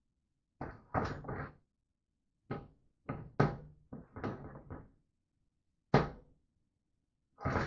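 Irregular knocks and clatters of the trike basket's metal parts being handled and pushed together during assembly, about six separate bumps.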